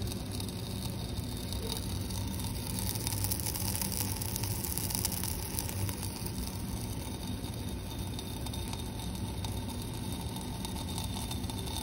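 Sodium chloride solution sizzling and crackling in a glass beaker on a hot plate as the last of the water boils off, with a steady low hum underneath.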